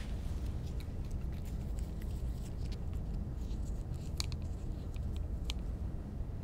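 Steady low room hum with a few faint clicks and light rustles as a stethoscope is handled and wiped clean.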